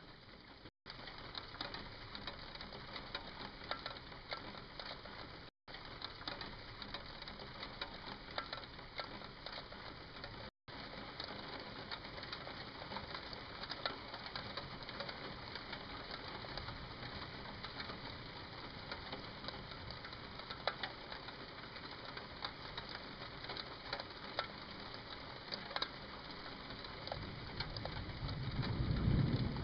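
Steady patter of rain with fine crackly drips. The rain is briefly cut off three times, early on and about five and ten seconds in. Near the end a low roll of thunder builds.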